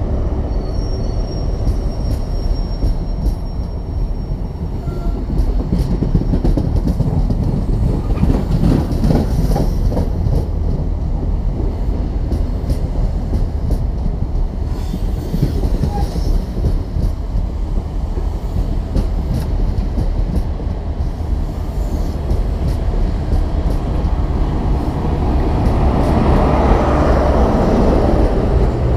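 High Speed Train (InterCity 125) rolling past along the platform: a steady rumble of Mark 3 coach wheels on the rails. The loudness swells near the end as the rear Class 43 power car's diesel engine passes close.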